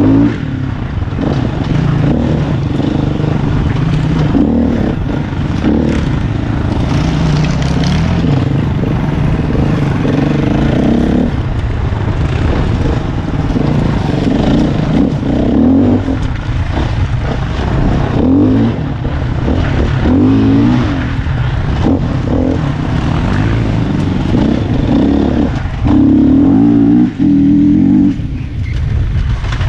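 Off-road motorcycle engine revving up and down as it rides a trail, the throttle opening and closing every second or two, with its loudest surge a little before the end.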